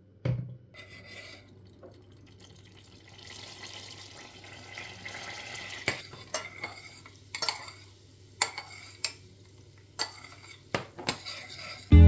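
A spoon stirring melted butter with red pepper flakes in a small stainless steel saucepan. It clinks against the pan about ten times through the second half, after a soft sizzling hiss. A single knock sounds just after the start.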